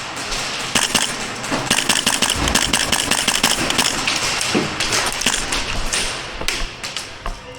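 Airsoft gunfire during an indoor game: a dense run of sharp cracks and knocks in quick succession, some in rapid strings, others single.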